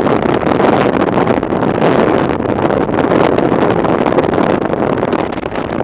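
Steady wind rushing over the microphone of a camera on a moving motorcycle, with the motorcycle running underneath.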